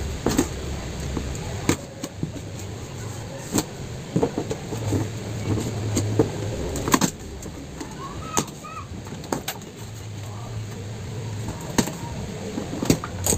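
Scissors cutting the packing tape on a cardboard box, then the cardboard flaps being opened and packaged goods handled inside. Irregular sharp clicks and scrapes, with a low rumble coming and going in the background.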